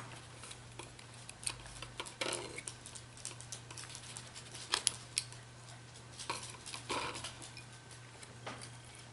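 Small metal parts of a Cold Steel Recon 1 folding knife (blade, liner, screws and bushings) clicking and tapping against each other and a plate as the knife is taken apart by hand, in irregular small taps, with a faint steady hum underneath.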